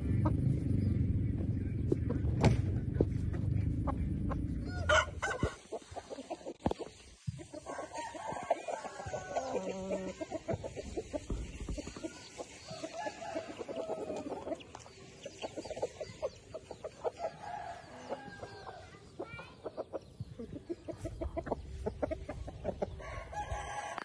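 Roosters clucking, with occasional crowing. A low rumble fills the first five seconds and stops suddenly.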